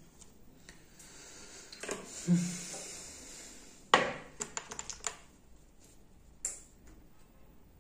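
Small tools clicking and tapping on a repair bench: a soft rustling hiss, then a sharp click about halfway through followed by a quick run of lighter clicks and one more click near the end.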